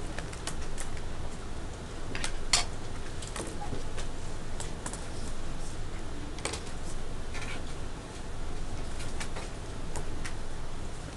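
Room tone of a classroom during silent seatwork: a steady low hum with scattered, irregular light clicks and taps.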